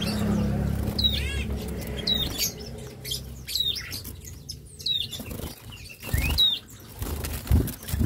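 Cinereous tits giving short, sharp calls about once a second, with wings fluttering. A low hum runs under the first few seconds, and there are low thumps near the end.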